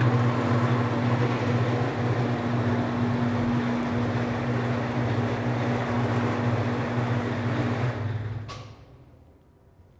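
Electric motor of a BWS-80 HD industrial wire stripping machine running with a steady low hum. About eight and a half seconds in it is switched off with a click and the motor winds down.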